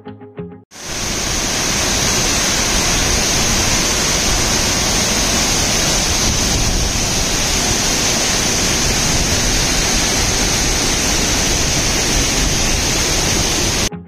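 Rain-swollen waterfall, 30 to 40 metres high, pouring into its pool: a loud, steady rush of falling water. It starts suddenly about a second in and cuts off just before the end.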